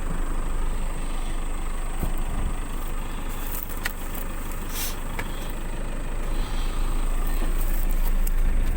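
Four-wheel-drive car's engine running steadily, with a few sharp knocks or rattles about 2, 4 and 5 seconds in.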